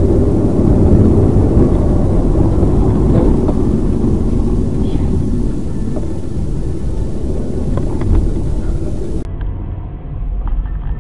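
Car driving, heard through a dashcam: a steady low rumble of road and engine noise, with a few faint ticks. Near the end it switches abruptly to a duller recording of the same kind of vehicle noise.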